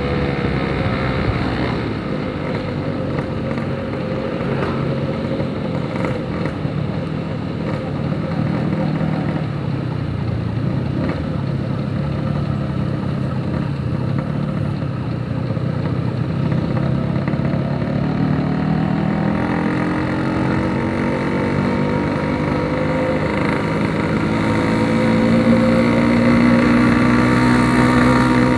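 Yamaha RX-King 135cc single-cylinder two-stroke engine running through a Packing Power PK2 aftermarket exhaust while riding. Its pitch falls at the start as the bike slows, holds through the middle, and rises again over the last several seconds as it accelerates.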